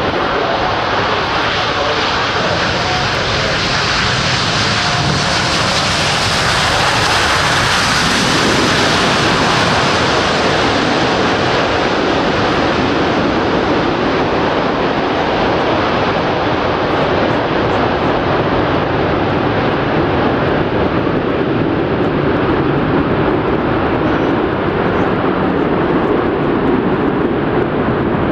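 Four-engine jet noise of an Airbus A380 landing: a loud, steady rush that swells to its fullest about six to ten seconds in as the airliner passes closest, then carries on steadily as it rolls out on the runway.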